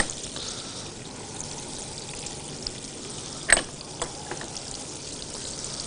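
Onion, pepper and carrot sizzling in oil in a pan. A couple of short knocks come about three and a half seconds in, one sharper than the other.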